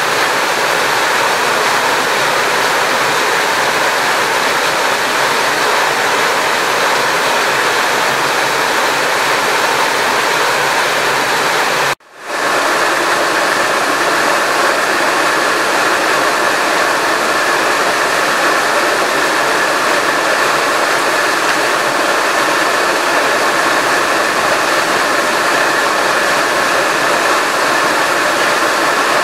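Steady, loud rushing of water, broken only by a momentary cut about twelve seconds in.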